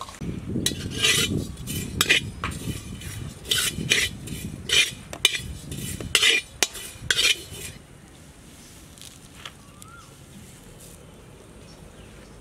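A metal spoon clinking and scraping in a cooking vessel while stirring or mixing food, a run of strokes for about eight seconds that then stops.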